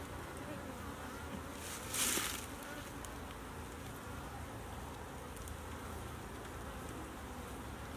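Honeybees from an opened nucleus colony buzzing steadily, a low even hum, with one brief scraping rustle about two seconds in.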